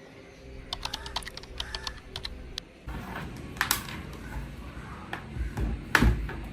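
Typing on a computer keyboard: quick runs of key clicks in the first couple of seconds, then scattered louder knocks, the loudest near the end.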